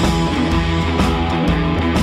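Rock music with guitar and drums, a steady beat.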